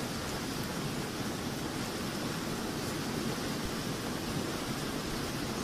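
Steady rush of fast-flowing water churning through a channel.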